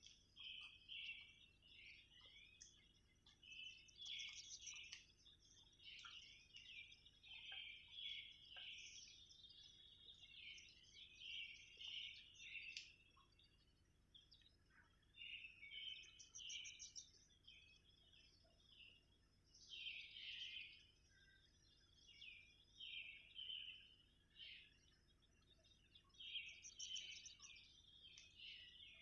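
Faint forest birdsong: birds chirping and trilling in short phrases that come every few seconds.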